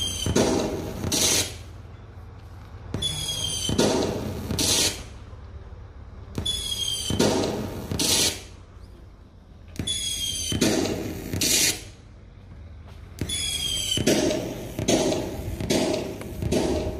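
Firework sound effect played through the speaker of an LED electric-firework light. Each cycle is a whistling launch followed by bangs and crackling, repeating about every three and a half seconds, with a quicker run of bangs near the end.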